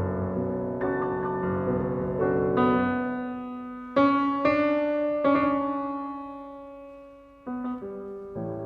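Background piano music: repeated chords, then a few notes struck and left to ring and fade away, with new chords coming in near the end.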